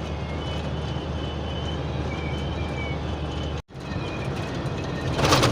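Inside a truck cab at highway speed: a steady engine and road drone, with a faint thin high whistle coming and going, wind whistling from the front, which the driver takes to be around the windscreen. The sound drops out for an instant just past halfway, and a brief loud rattle comes near the end.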